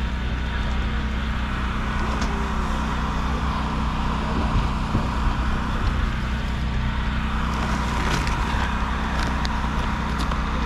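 Steady low motor hum, like an idling engine, running throughout. Near the end come light rustles and small clicks of plush toys and a plastic bag being handled.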